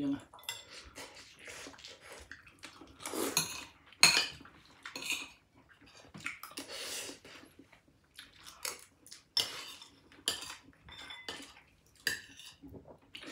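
Cutlery clinking and scraping against dishes in scattered irregular clicks and knocks, with a sharper clink about four seconds in and a longer scrape near the middle.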